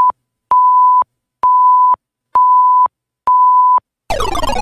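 Electronic countdown timer beeping a steady single tone about once a second, counting off a five-second answer time. Near the end a falling electronic sound effect with many tones sliding down marks time up.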